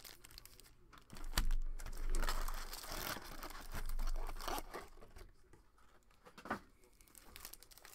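Foil wrappers of 2020 Topps Update Baseball hobby packs crinkling in several short bursts as the packs are handled and stacked, with a sharp tap near the end.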